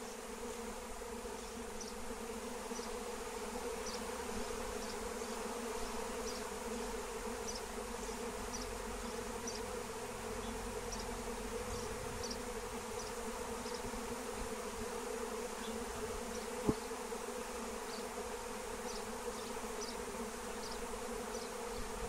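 A honeybee swarm buzzing, a steady drone of many wings from a mass of bees clustered on a hive box. A single sharp click sounds about three-quarters of the way through.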